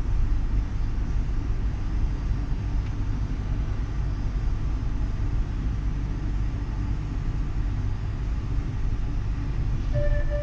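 Uijeongbu light rail train (a Siemens VAL 208 car) running along the line with a steady low rumble. A steady whine from the drive sets in near the end.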